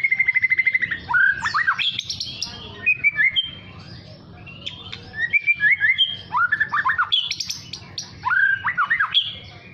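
Young white-rumped shama (murai batu) practising its song. It opens with a fast trill of rapidly repeated notes, then gives several short phrases of sharp whistles that sweep quickly up and down: the loud 'nembak' notes of a juvenile still learning to sing.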